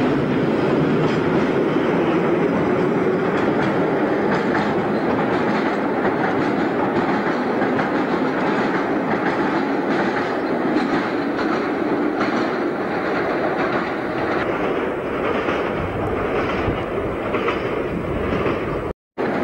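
BR Class 485/486 ex-London Underground electric train running on the track, its wheels clattering rhythmically over the rail joints. The sound cuts out briefly near the end.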